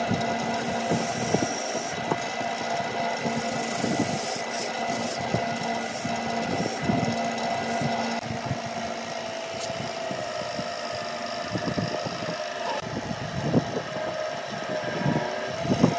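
Wood lathe running with a steady motor hum while a turning chisel scrapes grooves into the spinning wood. The cutting hiss stops about halfway through. Near the end, rubbing friction is heard as a wire is held against the spinning piece to burn lines into the grooves.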